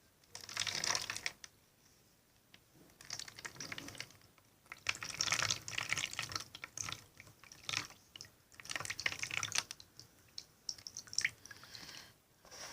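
Wet glue-and-salt slime mixture being drained from one plastic container into another and stirred, in several bursts of liquid splashing and squelching with light sharp clicks.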